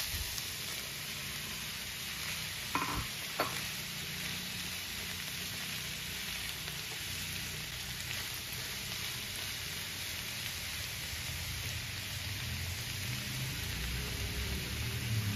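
Diced vegetables sizzling in oil in a frying pan, stirred with a silicone spatula: a steady frying hiss, with two short knocks about three seconds in.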